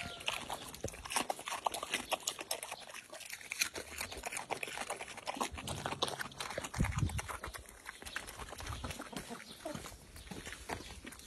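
Young pig chewing and crunching watermelon with its mouth open: a rapid, uneven run of smacking clicks. A brief low thud comes about seven seconds in.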